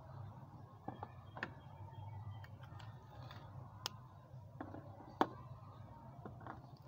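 Scattered light clicks and taps of a plastic bottle, a pen and its cap being handled and set down on a tray, a few irregular ticks with the sharpest about five seconds in, over a faint steady low hum.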